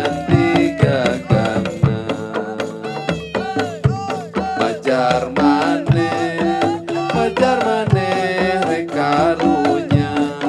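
Traditional Sundanese ensemble music: drums struck in quick, uneven strokes under a melodic line that bends and slides in pitch over held lower notes.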